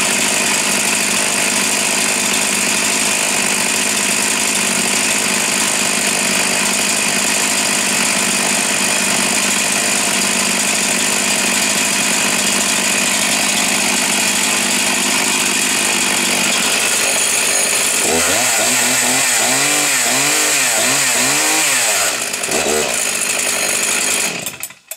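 Husqvarna 61 two-stroke chainsaw running loud and steady at high revs. Near the end the engine pitch swings up and down repeatedly, then the saw winds down and stops.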